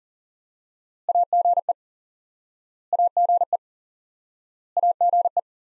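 Morse code tone keying the amateur-radio abbreviation AGE (·− −−· ·) at 40 words per minute: a single steady mid-pitched beep switched on and off in quick dits and dahs, sent three times about two seconds apart.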